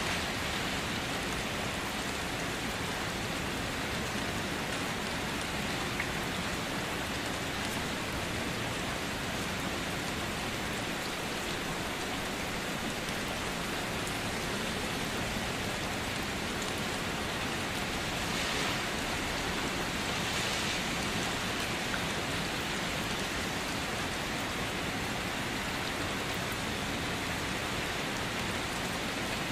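Steady rain falling, an even hiss, with two brief louder swells of hiss about two-thirds of the way through.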